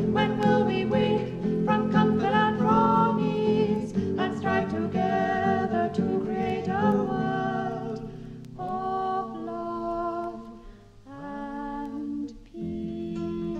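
Folk group of mixed voices singing wordless vocal harmony over acoustic guitar, with held notes that change every second or so and dip quieter in the second half.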